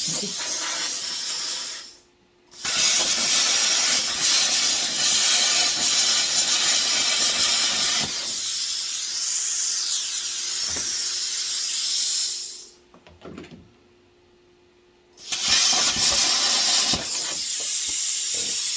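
Electric arc welder sputtering and hissing in long runs as the weld is laid. It stops briefly about two seconds in and for about two seconds near the middle of the second half.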